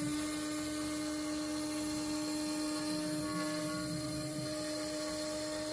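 CNC router spindle running at a steady high speed, a constant whine with a high hiss.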